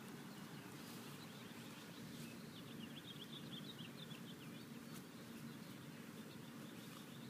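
Faint outdoor background with a steady low hum; a bird twitters in a quick run of high chirps for about two seconds in the middle.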